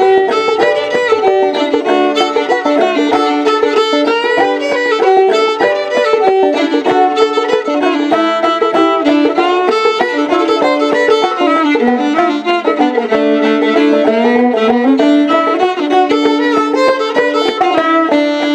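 Fiddle playing an old-time blues melody with clawhammer banjo behind it, an instrumental break between sung verses.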